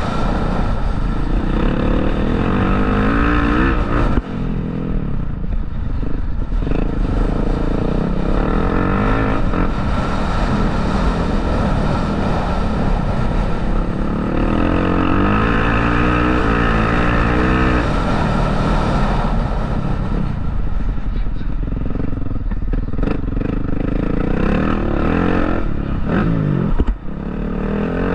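Motocross bike engines running hard, pitch rising and falling repeatedly as the throttle opens and gears change, over a steady low rumble.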